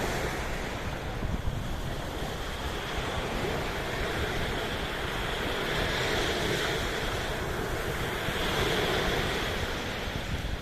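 Sea waves washing in as a continuous rush that swells and eases, with wind buffeting the microphone.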